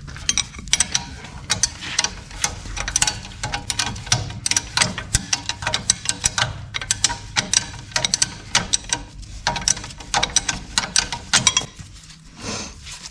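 Hand ratchet clicking in quick, uneven runs as a stiff wheel-hub bolt is wound out. The clicking pauses briefly near the end, then resumes.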